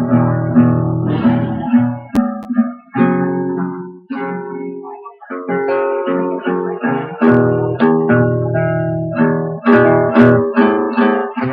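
Acoustic guitar strummed in a run of chords, each struck sharply and left to ring down, with brief pauses between phrases.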